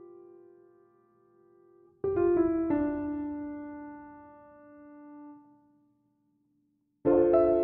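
Background piano music: a chord struck about two seconds in rings and slowly fades away, then after a moment of silence another chord starts near the end.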